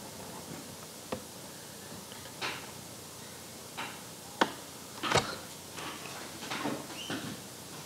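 Room tone broken by a handful of short, scattered clicks and light knocks, the loudest a knock with a low thud about five seconds in.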